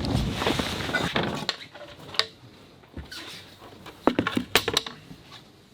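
Wind buffeting the microphone, cut off about a second and a half in, then a quiet small room with a few scattered light knocks and clinks, a short cluster of them near the end.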